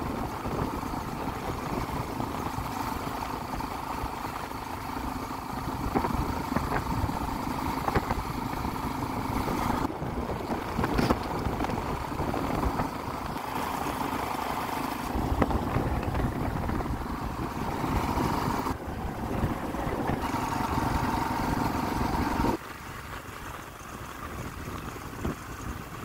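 Motorcycle engine running steadily while riding along a road, with rushing wind noise over it; the sound drops noticeably in level near the end.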